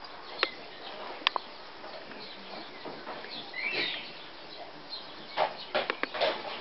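Four-week-old puppies giving short, high yips and squeaks as they play: a couple near the start, one drawn-out whine about halfway, and several quick yips close together near the end.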